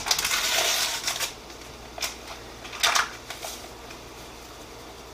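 A paper packet of cherry Jell-O powder being torn open and crinkled for about a second, then two short, sharper crinkles as it is handled and emptied.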